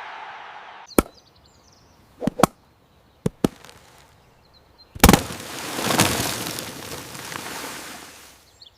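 Several sharp cracks or knocks, then a loud bang about five seconds in followed by a rushing noise that slowly fades out.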